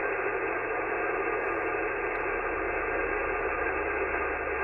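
Amateur radio receiver on a 10-metre single-sideband frequency with no station transmitting: steady, narrow-sounding band-noise hiss.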